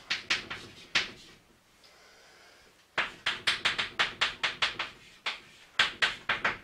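Chalk tapping and scraping on a blackboard as characters are written: a short run of quick strokes, a pause of about two seconds, then a faster run of strokes.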